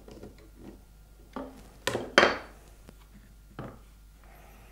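Hand tools and a wooden rod with a brass fitting knocking on a wooden workbench: a few faint clicks, then four separate hard knocks, the loudest about two seconds in with a brief ring.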